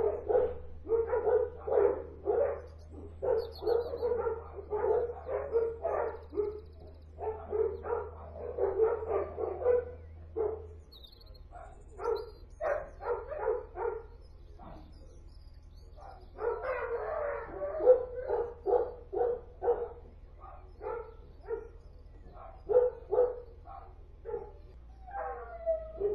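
Kennel dogs barking over and over, short barks about two a second, with a couple of brief pauses near the middle.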